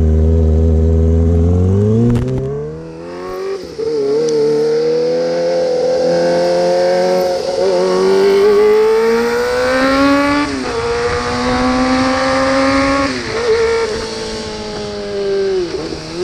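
Kawasaki ZX25R inline-four with an Austin Racing GP exhaust pulling away hard and shifting up through the gears: it runs steady, then the revs climb, and the pitch drops suddenly at each upshift, about three times. Wind rushes over the microphone as it picks up speed.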